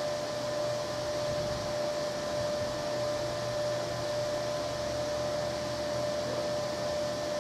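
Steady fan-like whir of running shop machinery, with a constant mid-pitched tone and a low hum over it.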